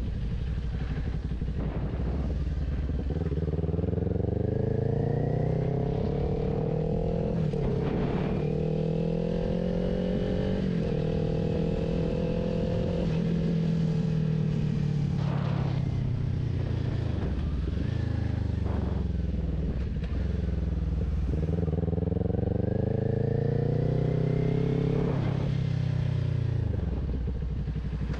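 Kawasaki Ninja 400 parallel-twin engine with a Two Brothers aftermarket exhaust, under way: its pitch climbs as the bike accelerates, holds, then sinks as it slows through the middle, before climbing again and dropping off near the end.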